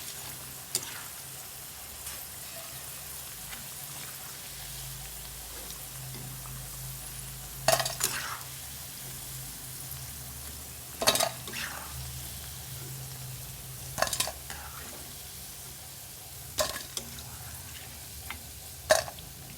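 Bread pakoda frying in hot oil with a steady sizzle. A metal spoon knocks sharply against the pan five times, a few seconds apart, as the pieces are turned or lifted out once golden.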